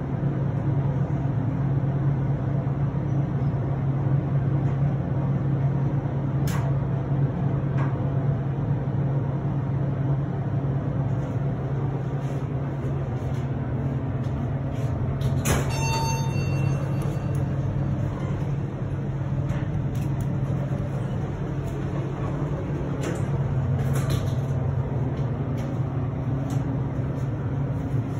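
Steady low machinery hum, with a sharp click about six and a half seconds in and a single ringing elevator chime about halfway through, from a Montgomery elevator.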